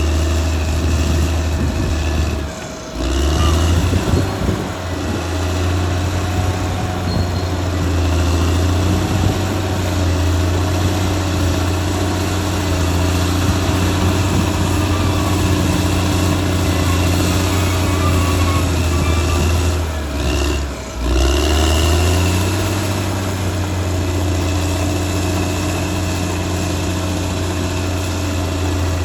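Caterpillar D6R XL bulldozer's diesel engine running steadily as the dozer works, a deep continuous hum. The sound drops out briefly about three seconds in and again about twenty-one seconds in.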